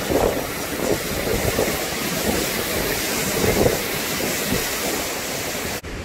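Waterfall pouring into its plunge pool: a loud, steady rush of falling and churning water. It cuts off abruptly near the end.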